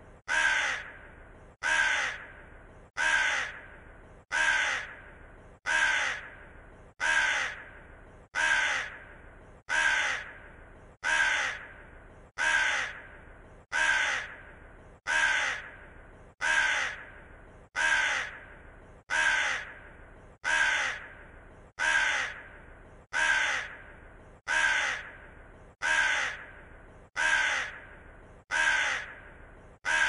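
A crow cawing: single harsh caws, all alike, repeated at an even pace of about one every one and a half seconds.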